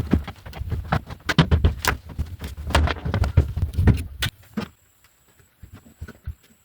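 Irregular knocking and clattering over a low rumble, cutting off abruptly about four seconds in. Afterwards only faint scattered clicks and a faint high steady tone remain.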